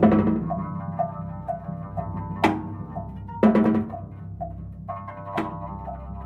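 Free-improvised duo of drum kit and double bass: four sharp drum and cymbal strikes ring out, spaced irregularly, over a steady pulse of light pitched taps about twice a second and a low steady drone underneath.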